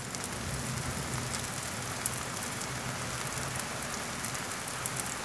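Kimchi pancake batter frying in oil in a pan: a steady sizzle with scattered crackles and pops.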